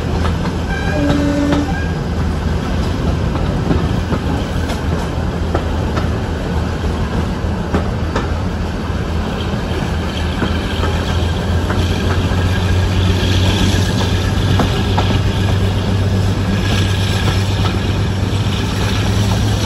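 Class 52 'Western' diesel-hydraulic D1015 running with its twin Maybach engines, a steady low drone heard from an open coach window just behind the locomotive, growing louder after about halfway. Wheels click now and then on the rails, over a rush of air past the train.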